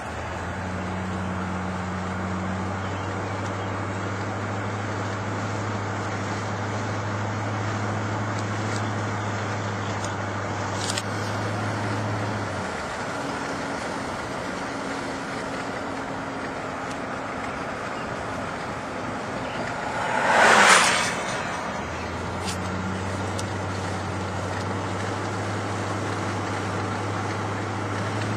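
Road noise of a car driving on a highway, heard from inside the cabin: a steady tyre hiss with a low engine drone that drops away about twelve seconds in and comes back about twenty-two seconds in. Just after twenty seconds a passing vehicle gives a brief, loud whoosh that swells and dies away.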